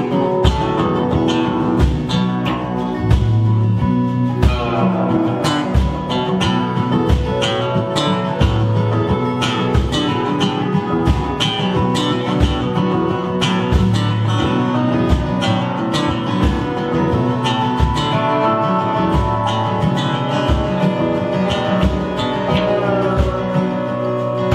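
Live folk-rock band playing an instrumental passage: acoustic and electric guitars, bass guitar, keyboard and Weissenborn lap slide guitar over a steady drum beat.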